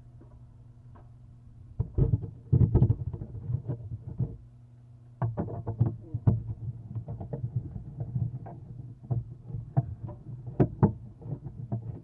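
Irregular knocks, taps and clatters on a wooden barn owl nest box as it is handled and cleaned out, starting about two seconds in and coming thick and fast from about five seconds on, over a steady low hum.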